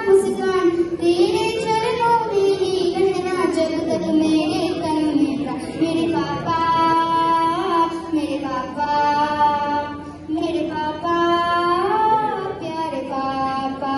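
A girl singing solo, holding long notes that glide up and down in a slow melody.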